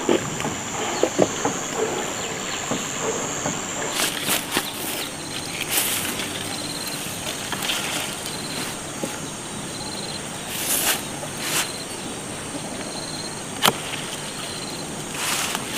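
Rural outdoor ambience with insects chirping steadily. Over it come brief rustles and crackles of footsteps in grass and papaya leaves being handled, and a sharp snap near the end as a knife cuts a green papaya from its stalk.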